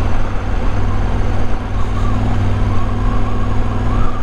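KTM 1190 Adventure R motorcycle engine running steadily under the rider while riding, with a faint wavering whine over it in the second half.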